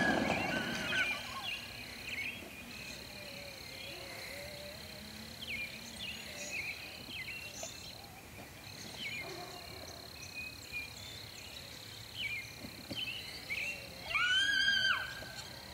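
Outdoor birdsong: many short, quick chirps scattered throughout over a thin, steady high whine, with one louder drawn-out cry lasting about a second near the end.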